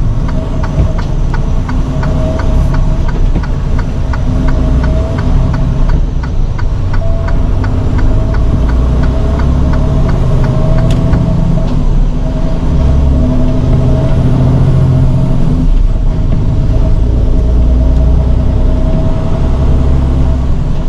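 Semi-truck's diesel engine heard from inside the cab, running steadily with a low rumble and a steady hum, and a rapid even ticking about four times a second through the first half.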